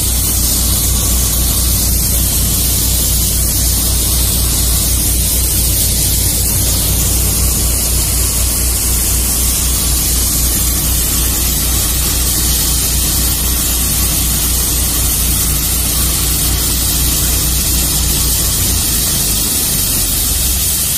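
High-pressure water jet hissing steadily out of an open high-pressure hose with no nozzle, fed by a twin-engine (double) sewer jetter at full flow, with the engines droning low underneath. The low drone shifts near the end.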